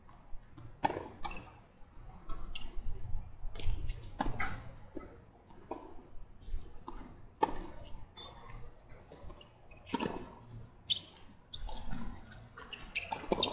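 Tennis rally on a hard court: racket strings striking the ball and the ball bouncing off the court. Sharp pops come at uneven intervals, roughly one every second.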